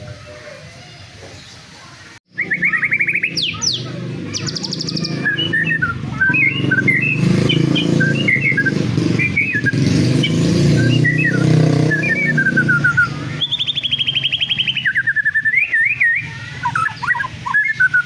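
White-rumped shama singing a loud, varied song of quick whistled notes and fast trills. The song starts suddenly about two seconds in, with a low background rumble under the first part.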